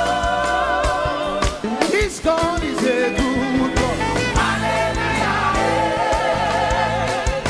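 Live gospel praise music: singers holding notes with vibrato over a band's bass and drums, with a sliding vocal run about two seconds in.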